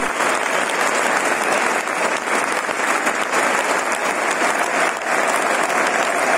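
Large stadium crowd applauding steadily, a dense wash of clapping.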